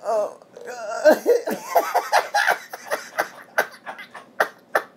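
A man laughing hard: a wavering high laugh that breaks into a string of short, gasping, cough-like bursts about two or three a second toward the end.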